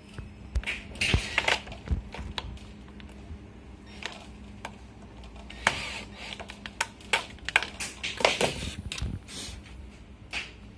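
Scattered clicks, taps and rustles of gloved hands handling aluminium door panel fittings, working a part and its rail loose, with several louder clatters.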